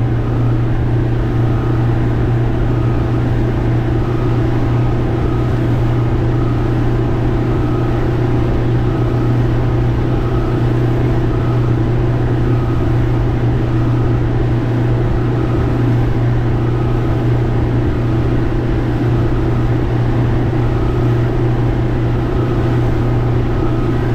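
Small boat's engine running steadily while the boat is underway at speed, with the rush of water and wind along the hull.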